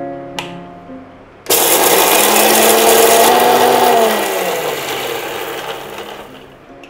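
An Indian mixer grinder (mixie) starts suddenly about a second and a half in and runs loud, grinding spices to a powder. After a few seconds it is switched off and winds down, its whine falling in pitch as it fades out.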